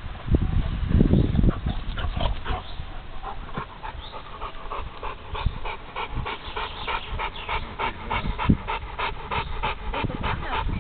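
American bulldog panting hard in a quick, even rhythm of about three to four breaths a second. A loud low rumble comes first, in the first couple of seconds.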